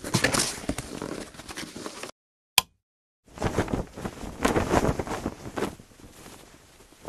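Rustling and irregular clicking as plastic packs of broadheads in a cardboard carton are handled. After a short gap, from about three seconds in, a flag flaps and snaps in strong wind, fading near the end.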